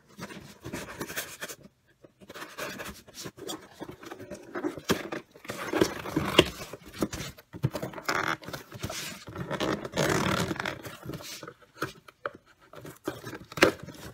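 Knife blade slitting the packing tape on a cardboard shipping box, in short irregular rasping and scraping strokes along the cardboard with sharp clicks; near the end the cardboard flaps are pulled open.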